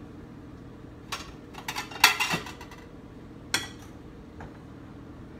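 Ceramic plates clinking and clattering as one is taken down from a stack on a cabinet shelf and handled at the countertop. The loudest burst of clatter comes about two seconds in, with a single knock about three and a half seconds in.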